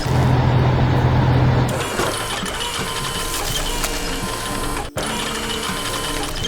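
Steady mechanical whirring and clicking, like an animated machine at work, with a louder low hum for the first two seconds and a brief break about five seconds in.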